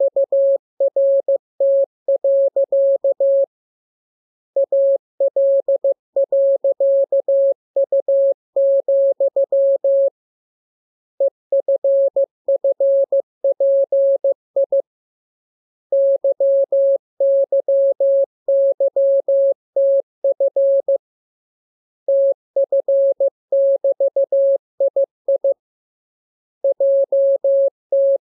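Morse code sent as a single steady beep tone, keyed in quick dots and dashes. The characters come in groups with pauses of about a second between them, practice code groups built from the lesson's letters and signs (K M U R E S N A P T L W I . J Z = F O Y ,).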